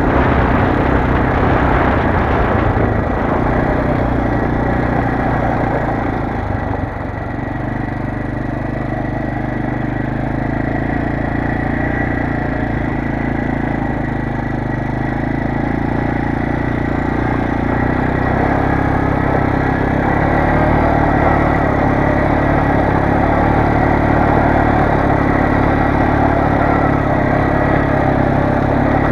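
Kymco MXU 400 ATV's single-cylinder engine running as the quad is ridden. The engine eases off briefly about seven seconds in, then builds again.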